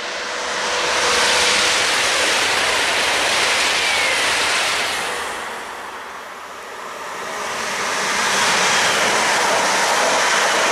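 An ICE high-speed train passing at speed, a loud rush of wheel and air noise that swells and fades; a few seconds later a red DB Regio electric multiple unit passes close by, its rush swelling again.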